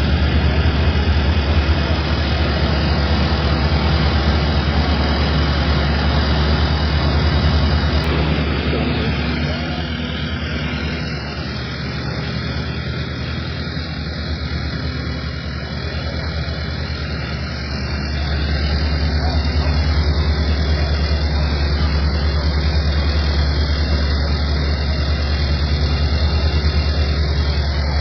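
Engine running steadily with a strong low hum and a broad noisy wash over it, easing off slightly for a few seconds in the middle.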